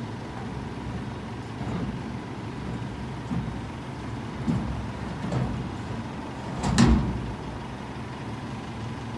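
Mack front-loader garbage truck's diesel engine idling steadily, with a few knocks and one loud bang about seven seconds in as bulk items are tossed into a front-load dumpster.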